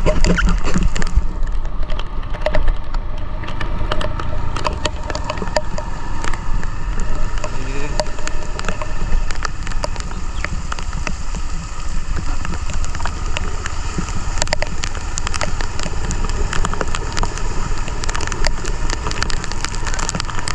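Motorcycle riding in heavy rain, heard through a GoPro's protective case: a steady muffled rumble of wind and engine, with many raindrops tapping on the case.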